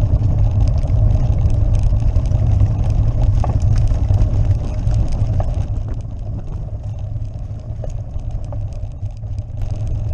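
Road bike riding over cobblestones, heard through a camera shaken by the bike: a heavy, steady low rumble with dense rattling, easing a little about two-thirds of the way in.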